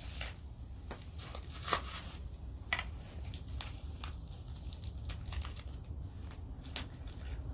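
Plastic sausage packaging crinkling and rustling as the cut pieces are handled and pulled out of the wrap, with a few sharper clicks among the rustles.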